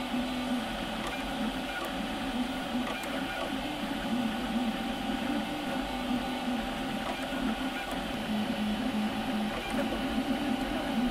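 Robo3D FDM 3D printer at work: the stepper motors whir as the print head moves, their whine stepping up and down in pitch with each move, over a steady hum.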